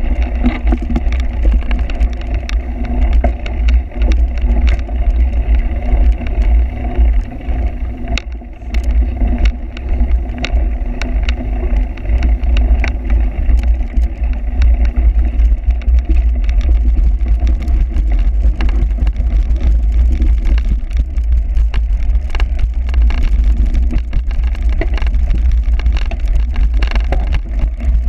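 Cyclocross bike ridden over rough ground, with a steady low wind rumble on the microphone and frequent sharp clicks and rattles.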